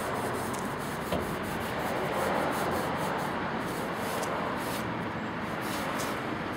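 A dry cloth rubbing over the sheet-steel fender of a 1970 Ford Mustang, wiping off the water after washing, with a steady scrubbing sound. A small knock about a second in.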